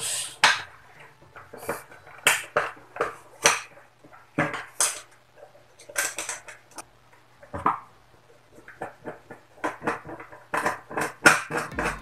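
Irregular hard clicks and knocks of a lamp holder being handled, pressed and fastened onto a plastic electrical junction box.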